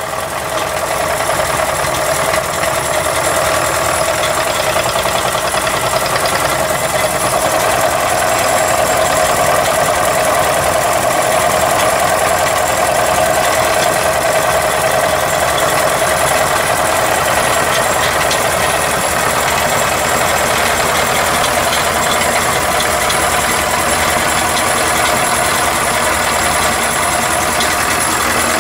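Model V8 engine built from Mamod steam engine parts, running steadily on air, building up over the first couple of seconds and then holding a fast, even beat.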